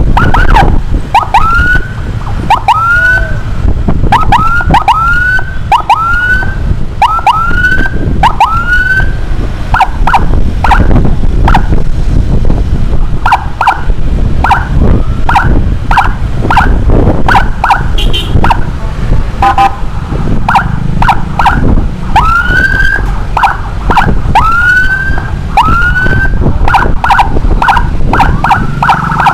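Electronic emergency siren giving quick rising whoops, about one a second, broken up by stretches of short, rapid chirps. Under it is heavy wind and road rumble from riding on a motorbike.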